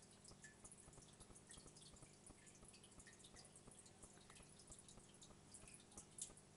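Faint water trickling and dripping in an aquarium, with many tiny irregular ticks over a low steady hum.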